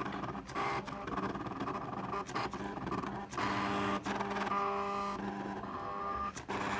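Stepper motors of a homemade mini CNC machine built from ROM drives whining as the axes move, the pitch jumping to a new steady tone every half second to a second as each move changes, with a few brief pauses.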